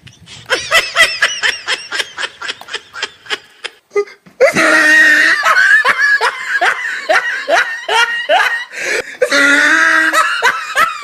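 A man laughing loudly and theatrically: first a run of quick, even 'ha' pulses, about three or four a second, then from about four seconds in a louder, unbroken belly laugh.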